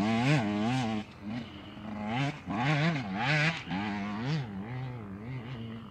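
Off-road race motorcycle engines revving through the sand, the pitch rising and falling repeatedly with the throttle, loudest at the start and again about two and three seconds in.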